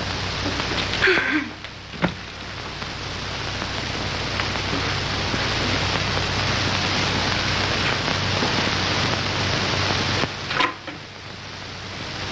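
Steady hiss of an old early-sound-film soundtrack over a low hum, rising a little in the first few seconds, with a few faint knocks about a second in and one about ten seconds in.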